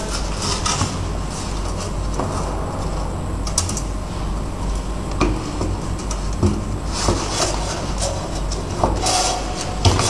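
Pneumatic combination steel strapping tool working a steel strap: mechanical clicking and ratcheting as it tensions and seals, with short bursts of air hiss near the start and twice near the end, over a steady low hum.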